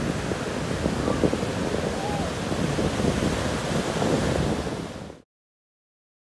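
Surf breaking and washing up on a sandy beach, with wind buffeting the microphone. The sound fades and cuts to silence about five seconds in.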